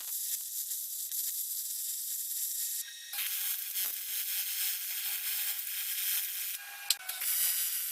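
Welding arc on an aluminium dash mount, a steady sizzling hiss that dips briefly about three seconds in and breaks off with a sharp click near seven seconds before carrying on.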